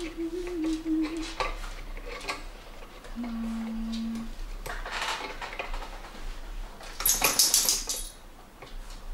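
A person humming a few long, steady notes while hands work wires in a metal amplifier chassis, with small clicks and rustles of handling. The loudest part is a harsh scraping rustle about seven seconds in.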